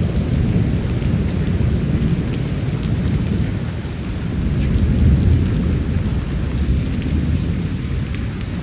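Steady rain with a low rolling rumble of thunder that swells about five seconds in; scattered drips tick through the hiss.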